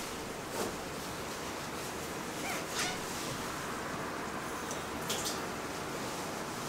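Steady background hiss of room tone, with a few faint brief sounds about half a second, two and a half and five seconds in.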